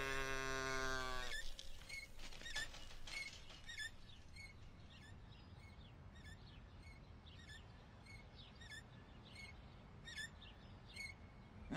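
A held musical chord ends about a second in. After it come faint, short high chirps repeating about once or twice a second over a quiet background.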